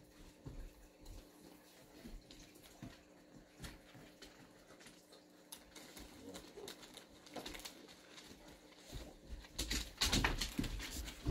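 Dogs playing on a wooden floor: scattered paw taps and scuffles, with now and then a soft, low vocal sound. About ten seconds in comes a louder burst of scuffling as two of the dogs wrestle.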